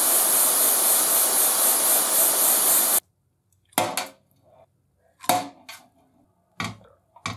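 Gas torch flame hissing steadily as it heats small steel parts to 300–400 °C for oil bluing, cut off suddenly about three seconds in. Then a few short sizzles as the hot parts are quenched in a bowl of oil.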